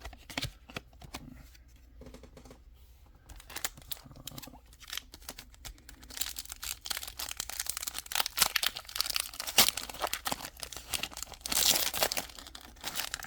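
Pokémon card booster pack's foil wrapper being handled, torn open and crinkled. There are light scattered clicks at first, and dense, loud crinkling and tearing takes over about halfway through.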